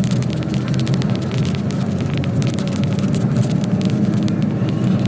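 Truck engine running steadily while driving, heard from inside the cab as a low drone, with many small rattles and clicks from the cab on top.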